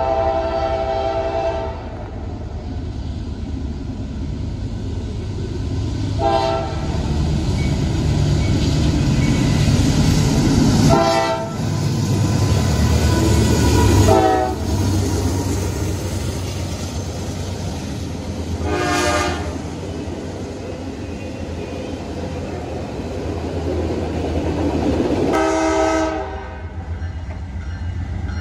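Norfolk Southern diesel freight train passing close by with a heavy engine and rail rumble, loudest as the locomotive goes past midway. Its air horn sounds a long blast at the start, then several short blasts spread through, and a longer one near the end.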